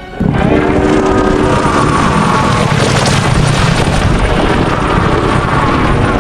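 Dragon sound effect: a rough, noisy rush with a low rumble that cuts in suddenly and holds loud and steady, with a short humming tone under it in the first second or so.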